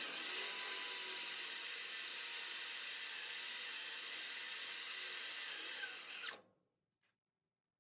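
Electric drill running steadily as it drills out spot welds in the steel floor pan, with a high motor whine over the cutting noise. It stops suddenly about six seconds in.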